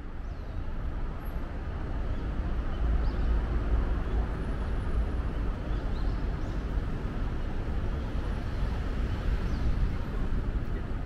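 Steady city street traffic noise: a continuous low rumble of passing vehicles, fading in over the first couple of seconds.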